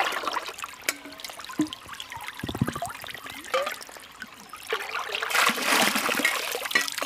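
Stream water poured from a steel container into a canvas Millbank filter bag, splashing as it fills, over the trickle of a shallow stream. The pour grows loud about five seconds in.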